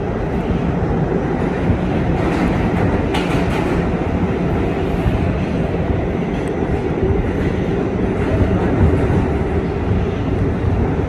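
Kawasaki R211A subway car running at speed on the express track through the tunnel, heard from inside: a steady loud rumble of wheels and running gear. A few faint clicks come from the wheels over the rail about two and three seconds in.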